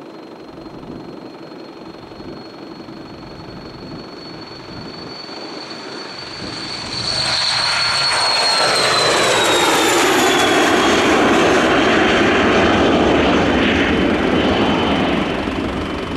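Cessna Citation XLS business jet taking off, with its twin Pratt & Whitney Canada PW545 turbofans at takeoff power. A high turbine whine grows louder as the jet rolls toward the microphone. About seven seconds in, the jet roar swells sharply as it lifts off and passes close, the whine dropping in pitch as it goes by, and the roar carries on as it climbs away.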